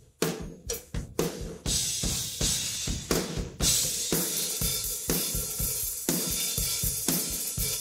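Isolated hard-rock drum kit heard through its cymbal, tom and room-ambience microphones, with no other instruments. A few spaced drum hits come first, then from about two seconds in the cymbals ring on steadily over a regular driving beat.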